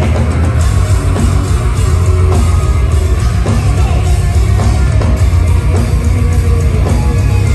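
Metal band playing live at full volume: heavy distorted guitars and bass over fast, pounding drums, heard from the crowd.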